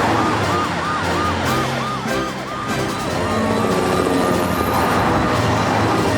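Emergency vehicle siren from the animated rescue vehicles heading out, a fast yelp of about four cycles a second. About halfway through it changes to a long rising wail that holds, over background music.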